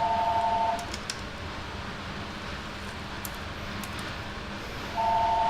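A steady tone made of two pitches sounding together, heard twice: it stops about a second in and starts again near the end. A constant hiss and a few faint ticks run beneath it.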